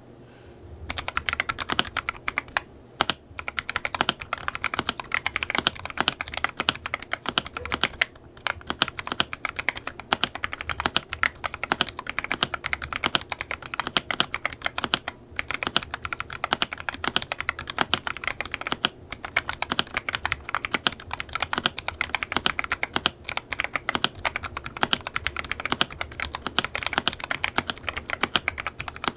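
Typing on a Weikav WK75 gasket-mount 75% mechanical keyboard: rapid, continuous keystrokes with a few brief pauses, starting about a second in.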